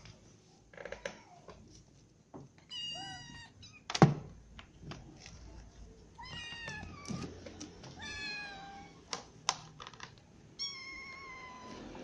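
Kittens meowing: four high-pitched meows spread over the stretch, with a sharp knock about four seconds in as the loudest sound, and a few lighter clicks.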